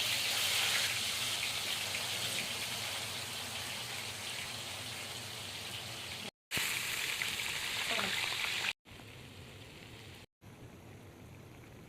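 Food frying in hot oil: a steady sizzle, broken by short gaps and dropping much quieter for the last few seconds.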